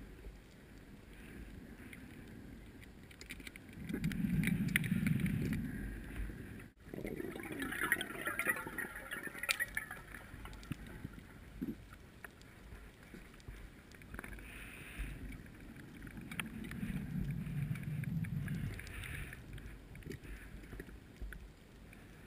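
Muffled underwater noise picked up through a GoPro's waterproof housing during a dive, with no speech. A low rushing swells up twice, about four seconds in and again about sixteen seconds in, and the sound drops out for an instant about seven seconds in.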